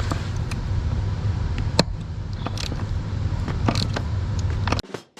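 Steady low hum of a running furnace, with scattered metallic clicks and knocks from a wrench working on the rear-seat bolts. The hum cuts off suddenly near the end, where drum music begins.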